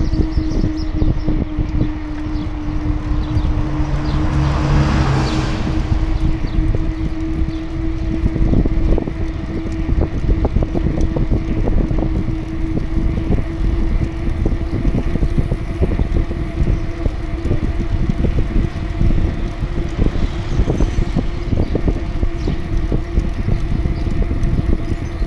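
Riding noise from a bicycle-mounted camera rolling along an asphalt road: wind buffeting the microphone, with frequent small knocks and rattles from bumps and a steady hum underneath. A brief swell of hiss comes about five seconds in.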